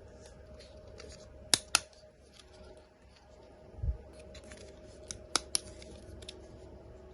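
Small hard objects being handled: two quick pairs of sharp clicks and a soft low thump between them, with faint taps and rustles throughout.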